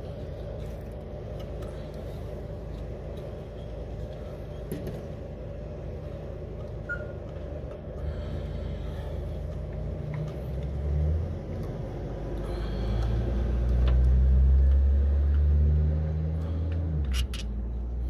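Low engine rumble of a motor vehicle, swelling for several seconds in the second half and then easing, with a few light metallic clicks of a wrench on a bolt near the end.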